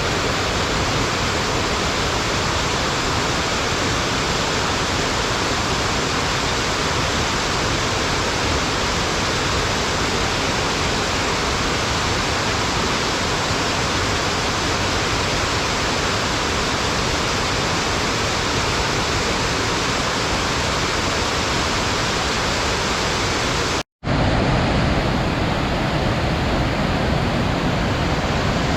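Waterfall rushing: a steady, dense roar of falling water. Near the end it cuts out for a split second and comes back slightly deeper.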